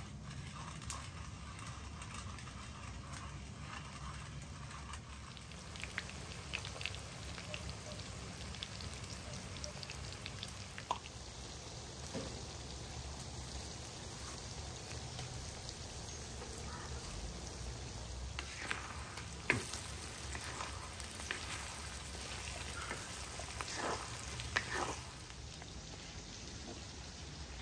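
Chicken and onions sizzling in oil in a sadj over a wood fire: a steady frying hiss with scattered sharp clicks and crackles.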